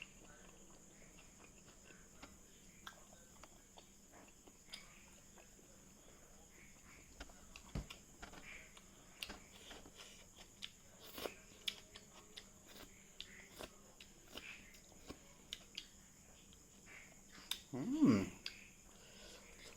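Close-up eating sounds: wet chewing and lip smacks as cooked cow skin with perilla seed sauce is eaten, in scattered small clicks. Near the end comes a brief louder voiced sound, a short hum or murmur.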